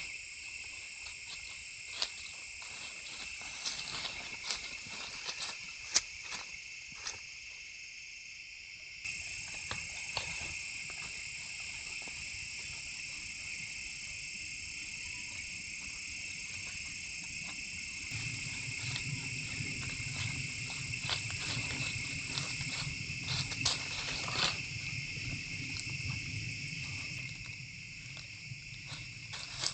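Steady insect chorus on a trail camera's microphone, with scattered sharp clicks and rustles over it. The background changes abruptly about nine and eighteen seconds in, and a low hum joins it after the second change.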